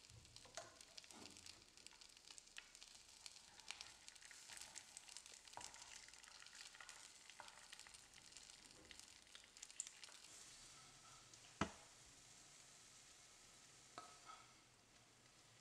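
Egg frying in a non-stick pan, a quiet sizzle full of small crackles, with a wooden spatula stirring and scraping it. A single sharp knock comes about three-quarters of the way through.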